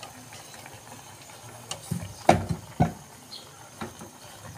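A metal ladle stirring pork rib curry in an aluminium pot, with a few sharp clacks of ladle against pot about two seconds in.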